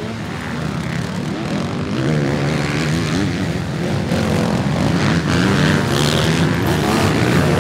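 Several motocross dirt bikes racing, their engines revving up and down with overlapping, wavering pitches, growing louder as the pack comes closer.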